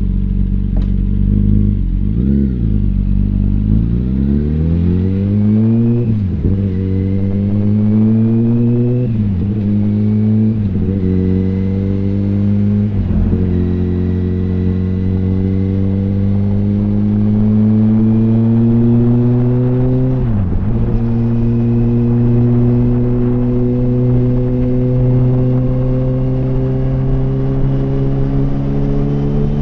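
Yamaha R1 (RN12) inline-four sport-bike engine running through an open exhaust with the baffles removed, accelerating and shifting up through the gears. The pitch climbs, drops sharply at each of six shifts, then holds a steadier, slowly rising note after the last shift about two-thirds of the way through.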